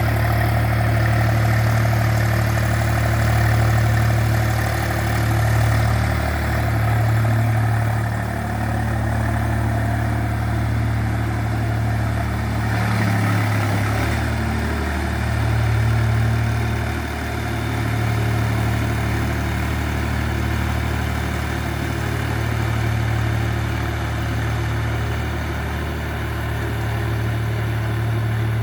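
Tractor engine running steadily while pulling a plow, a loud low hum that swells and fades every couple of seconds, with a brief dip about halfway through.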